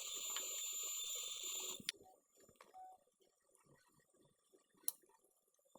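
Faint steady hiss of background room noise that cuts off abruptly about two seconds in, leaving near silence with a few faint ticks.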